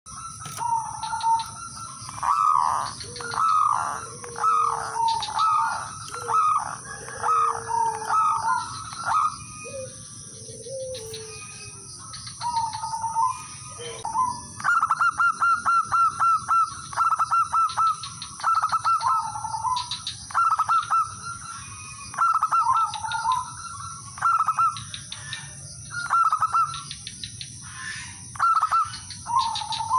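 Male zebra dove (perkutut) singing its song of trilling coos, phrase after phrase, with a quick run of rapid notes about halfway through. A lower-pitched second coo sounds under it during the first ten seconds or so.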